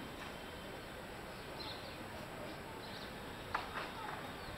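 Steady city background noise heard over rooftops, with a few faint high chirps and two short sharp sounds about three and a half seconds in.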